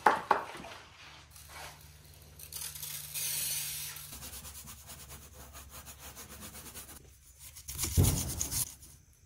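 A hand-pump spray bottle hissing out a mist of cleaner over an engine bay about three seconds in, then a detailing brush scrubbing the plastic cowl trim in short strokes, loudest near the end.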